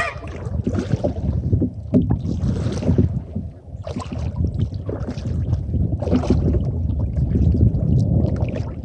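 Kayak paddle strokes dipping and splashing in the water, a series of splashes about a second or so apart, with wind rumbling on the microphone.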